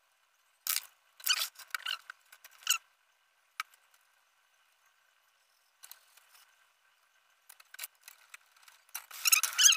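Short metallic squeaks and scrapes as a mechanical disc brake caliper and its 180 mm rotor adapter are handled and bolted onto a fat bike's rear frame. They come in scattered bursts, thicker near the end.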